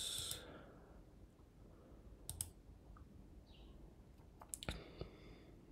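A few faint computer mouse clicks, one about two and a half seconds in and a couple more near the end, over quiet room tone. The tail of a breath fades out at the very start.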